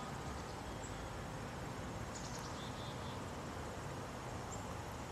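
Quiet outdoor ambience: a steady background hiss with a few faint, short, high chirps.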